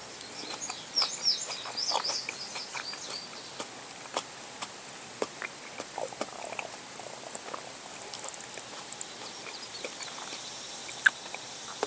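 A person chewing a bite of juicy raw tomato close to a clip-on microphone: irregular wet clicks and smacks of the mouth, with a run of high squeaky chirps in the first few seconds and one sharp click near the end.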